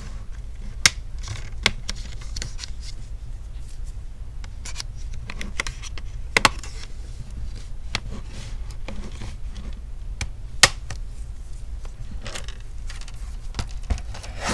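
A prying tool working around an HP 15 laptop's plastic screen bezel: four sharp clicks as the bezel's clips pop loose, with fainter ticks and scraping of plastic in between, over a steady low hum.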